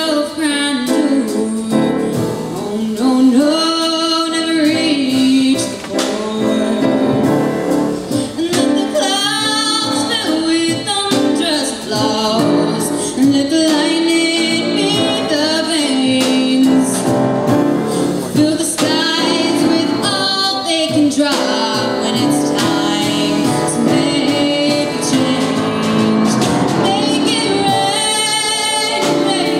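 A young woman singing solo into a microphone over instrumental accompaniment, with long held notes and vibrato.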